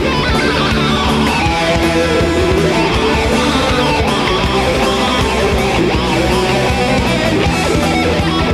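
Heavy metal band playing live, with electric guitar to the fore.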